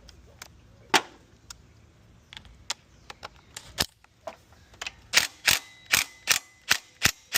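Sharp metallic clicks from hand tools at work on the engine: a few scattered ones, then from about five seconds in a regular run of about three clicks a second.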